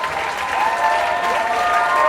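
Comedy-club audience applauding, with cheering voices calling out over the clapping; it swells up in the first half second.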